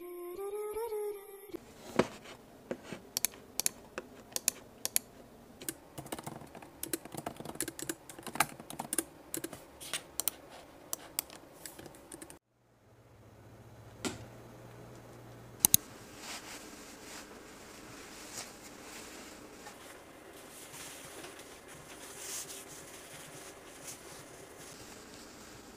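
Typing on a MacBook Pro laptop keyboard: irregular quick key clicks for about ten seconds. After a short break there are a few more clicks, then a quieter stretch of soft rustling.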